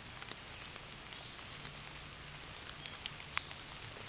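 Light rain dripping onto leaves and leaf litter: irregular soft ticks of drops over a faint steady hiss, with a couple of sharper drops a little past three seconds in.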